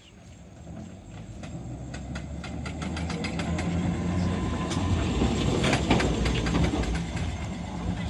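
1928 MAN electric tram rolling in on its rails and passing close by. A steady low motor hum grows louder as it approaches, with many sharp wheel-on-rail clicks. It is loudest as it goes past about six seconds in.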